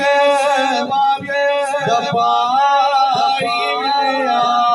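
A man singing a devotional Sufi kalam. He draws out long, held notes that slide and waver in pitch, with a few dull low thumps beneath.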